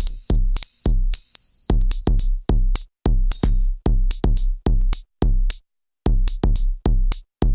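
Electronic beat played on a small drum machine: booming kick-drum hits with a falling pitch, about three a second, under a high bell-like tone for the first two seconds. The beat drops out briefly about three seconds in and again near six seconds, then comes back.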